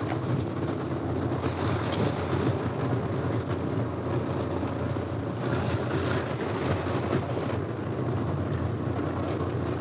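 Fishing boat's engine running with a steady low hum, under a wash of wind and water noise.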